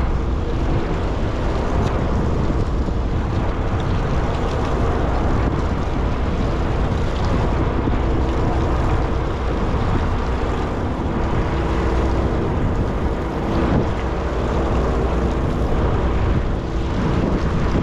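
Sportfishing boat's engine running steadily, with a constant hum over wind and water noise.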